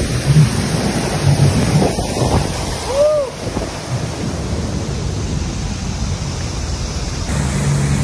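Loud, steady rush of water and wind buffeting the microphone while riding a jet ski close to a waterfall and along rough river water. A steady low engine hum comes in near the end.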